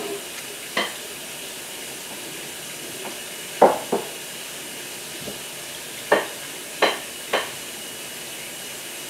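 About seven scattered, sharp taps of a fingertip on a smartphone touchscreen while scrolling through an app, the loudest about halfway through, over a steady background hiss.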